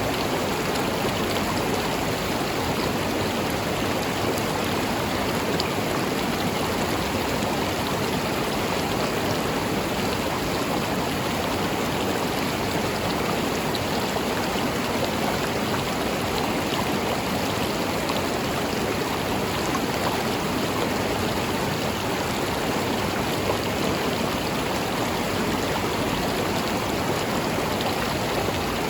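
River water flowing over stones, a steady rushing babble.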